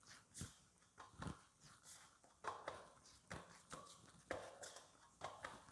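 Soft, irregular taps and knocks of a hand pressing and flattening a ball of maida dough on a large steel plate.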